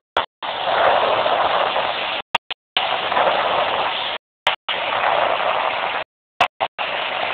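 Steady rushing noise aboard a speedboat underway with a Mercury outboard motor: wind, water and motor together, with no distinct engine note. It cuts off abruptly into dead silence several times, with short blips of noise between the longer stretches.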